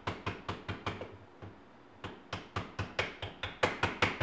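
Rubber mallet tapping the hammer and trigger pins into an AR-15 lower receiver: quick runs of light taps, about four a second, with a pause of about a second after the first second.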